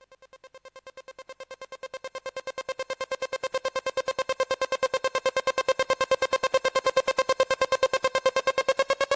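Background electronic music: one synth note pulsing rapidly, fading in from silence and growing steadily louder, its pitch starting to rise near the end.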